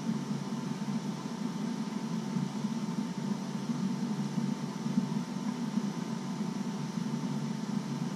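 A steady low hum and rush with a faint constant high tone, unchanging throughout.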